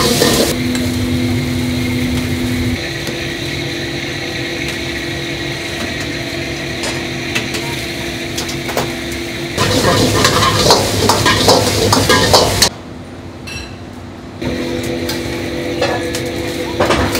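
Vegetables stir-frying in a steel wok over a gas burner: steady sizzling with a metal ladle scraping and clanking against the pan, over a low steady hum. It gets louder and busier with clatter about ten seconds in, then drops away briefly before the sizzling resumes.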